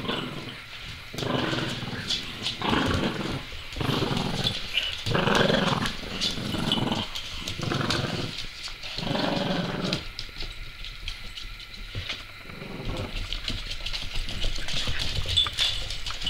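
French bulldog puppies growling in play while tugging a rope toy: a run of growls about one a second, then quieter with a few light clicks before the growling picks up again near the end.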